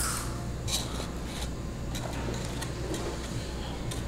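Quiet room tone with a steady low hum, and faint light taps and rustles of paper cupcake liners being pressed into place on a tray.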